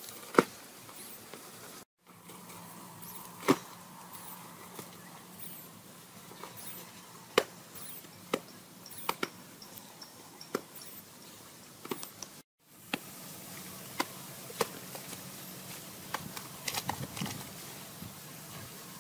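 Scattered sharp slaps and clicks of hands scooping and handling wet mud in an earth trench, irregular and a second or so apart, over a steady outdoor hiss. The sound drops out briefly twice.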